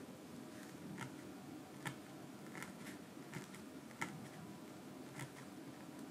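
A felting needle stabbing wool into a felt sheet over a foam pad: faint, crisp pokes at an uneven pace, about one or two a second, one a little louder about four seconds in.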